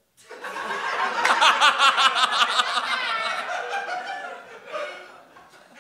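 A crowd laughing, swelling quickly just after the start and dying away near the end.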